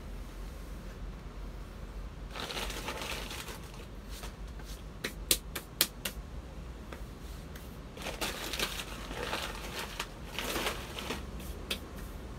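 Soil-covered hands brushing and rubbing against each other to knock off dirt, in several dry rustling spells, with two sharp slaps about halfway through.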